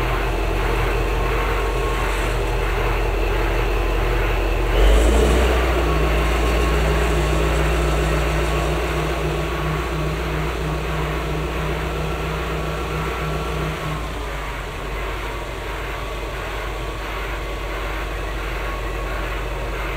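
Heavy mining haul-truck tractor's diesel engine running under load as it moves a low loader carrying a drill rig. The engine note jumps up suddenly about five seconds in, holds steady, then eases back a little about fourteen seconds in.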